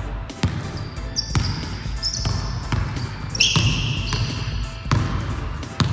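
A basketball being dribbled on a wooden sports-hall floor, one bounce about every second, with short high squeaks from sneakers on the floor between bounces.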